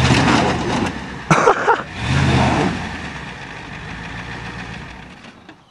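Ford truck's engine revving hard in two surges as it drives onto a junked car, with a sharp metallic crunch and clatter about a second and a half in as the car's sheet metal gives way under it; the engine then eases off and fades.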